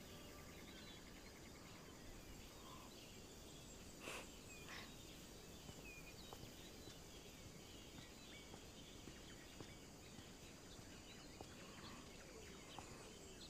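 Near silence: faint outdoor ambience with scattered, distant bird chirps, and two faint taps about four seconds in.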